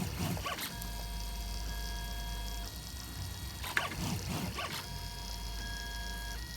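A 3D printer at work: its stepper motors whine in steady tones that change pitch every second or two as the print head changes moves, over a low hum. Short rattly bursts come near the start and again about four seconds in.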